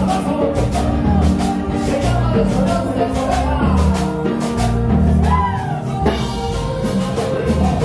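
A live band playing, with an even, quick drum beat over bass, and a voice singing a sliding line about five seconds in.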